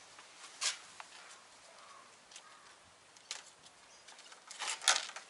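Hard plastic blister packaging of an ignition coil crinkling and clicking as it is handled, with a short cluster of sharper clicks and clatter near the end.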